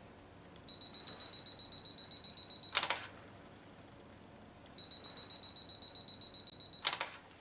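Camera self-timer beeping rapidly on one high tone for about two seconds, then the shutter clicks as the picture is taken; this happens twice.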